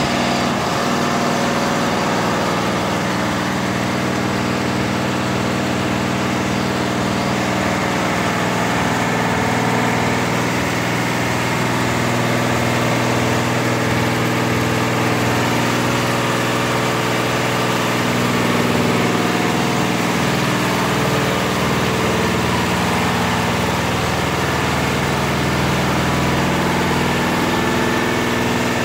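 Richpeace 12-head flat embroidery machine running, a steady mechanical hum with the fast, even beat of its needle heads stitching.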